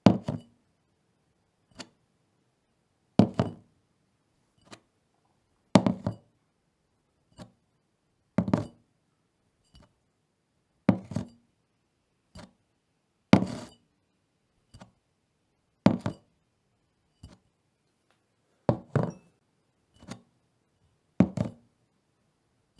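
A bottle set down again and again on a wooden table, a solid knock with a quick second tap about every two and a half seconds. A fainter single tap falls between each one.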